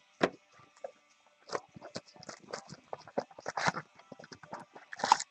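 Hands handling cardboard trading-card boxes and foil-wrapped packs: an irregular run of taps, clicks and crinkles, loudest about a quarter second in, near the middle and near the end.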